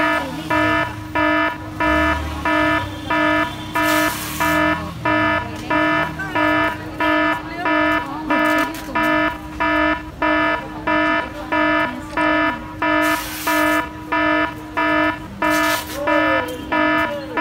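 An electronic alarm beeping in a steady, even rhythm, a little under two beeps a second, over a constant lower hum.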